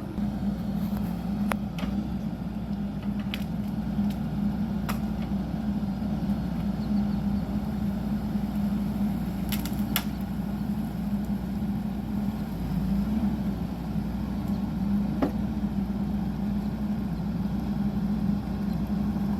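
CAT 420F backhoe's diesel engine running steadily, with a few sharp clanks from the machine working at intervals.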